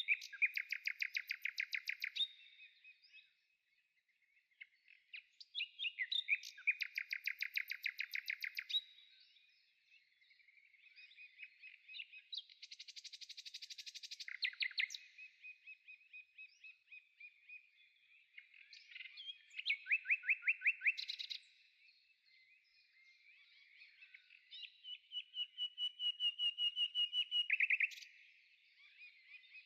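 A songbird singing: phrases of rapid trilled notes, each lasting two to three seconds, repeated about every six seconds.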